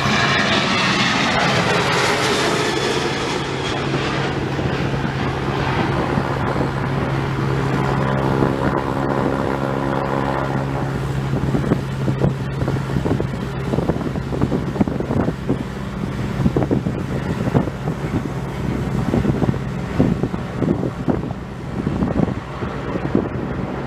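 A propeller aircraft's engines running with a steady drone and a rush that fades over the first few seconds as it moves off. From about halfway, gusting wind buffets the microphone, and the drone stops near the end.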